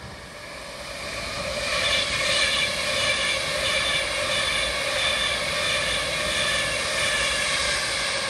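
Virgin Trains Class 390 Pendolino electric train running through the station at speed. Its noise swells over the first two seconds as it approaches, then holds steady and loud, with a high whine running through it as the carriages pass.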